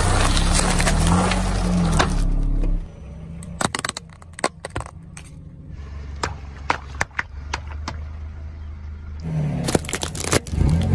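Car tyre rolling over and crushing packets of instant noodles: loud crackling and crunching of the plastic wrappers and dry noodles. Then a quieter stretch of scattered sharp snaps and clicks, and a second loud crackling crush near the end as the tyre presses down on a stack of plastic pieces.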